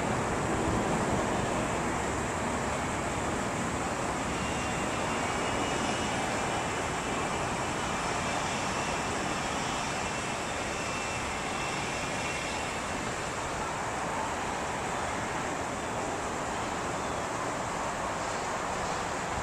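Jet airliner engines giving a steady roar that slowly fades, with a faint high turbine whine in the middle.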